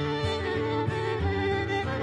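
Instrumental theme music with a fiddle playing.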